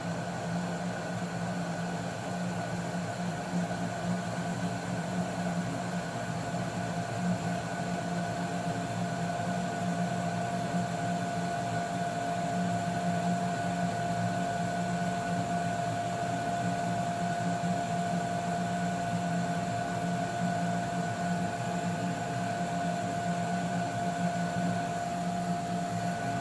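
Baxi gas boiler running steadily at full output, its fan and burner giving an even hum with a steady high whine over it. Its three-way valve has a freshly fitted, tighter rubber seal on the shutoff valve.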